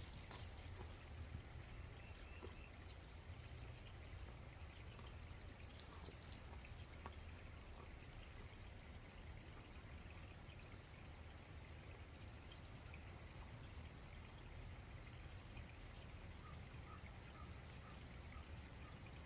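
Faint, steady trickle of flowing water with a few scattered drips, over a low steady rumble.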